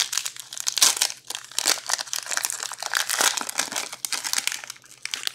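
Crinkling of packaging as trading cards are handled, a dense crackle that stops just before the end.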